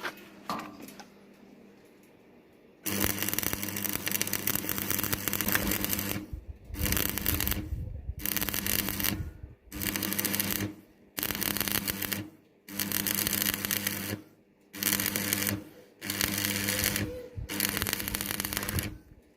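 Electric arc welding on 1 mm thick steel sheet: a crackling, buzzing arc that starts about three seconds in, runs a few seconds, then comes in about eight short bursts of a second or so with brief breaks between them.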